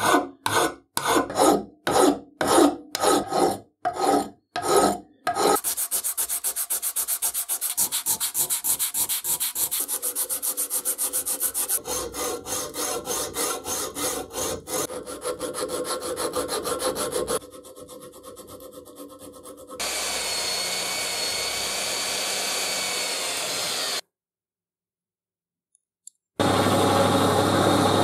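Hand file rasping over a cast aluminium handle held in a vise: separate strokes at first, then fast short strokes, then slower strokes again. After a few seconds of steady whirring and a short silence, a motor starts running steadily near the end, from a drill press spinning a wire brush.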